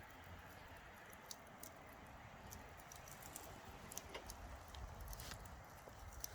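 Campfire crackling: faint, irregular snaps and pops from burning wood, a few sharper ones a little past the middle, over a low rumble.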